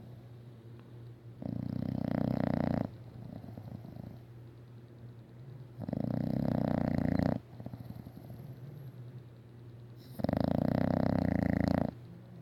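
English bulldog snoring loudly: three long snores about four seconds apart, each lasting about a second and a half, with quieter breaths in between.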